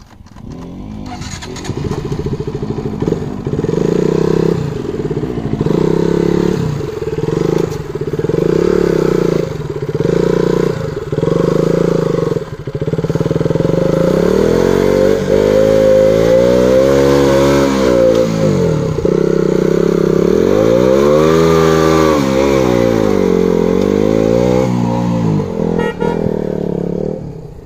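KTM Duke's single-cylinder engine revving as the bike is ridden through deep mud. It starts with short throttle blips about once a second, then from about halfway revs up and down hard several times as the rear tyre struggles for grip.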